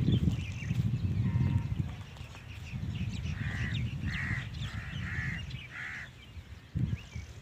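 A crow caws four times, a little under a second apart, over a loud low rumble on the microphone. A dull thump comes near the end.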